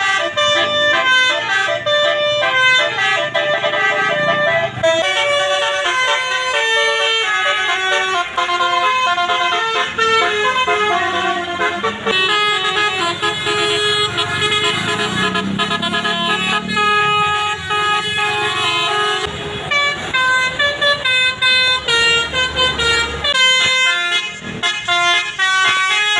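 Multi-note 'basuri' musical air horn on a bus, the telolet horn, playing a quick melody of held notes that step from pitch to pitch.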